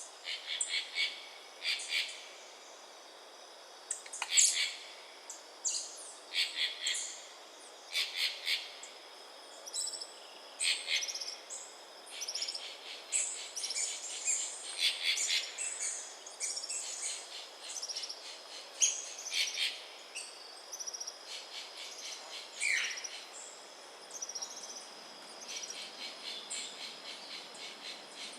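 Forest birds calling: short runs of quick, high chattering notes every second or two, overlapping thickly in the middle, over a faint steady high insect hum.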